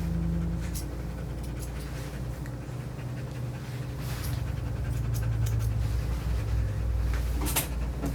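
Portuguese Water Dog panting, with a few short clicks and a steady low hum underneath.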